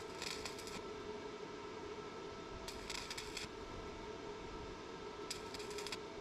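Three short bursts of electric arc welding crackle, each about half a second long and about two and a half seconds apart, like tack welds on the cart's wheel fitting. A steady electrical hum runs underneath.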